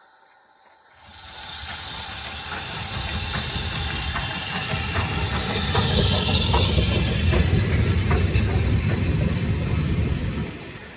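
BR Standard Class 4MT 2-6-4 tank locomotive 80151 steaming past close by, working a train with its exhaust and steam hiss. The sound builds about a second in, is loudest as the engine goes by, and falls away sharply near the end as the coaches follow.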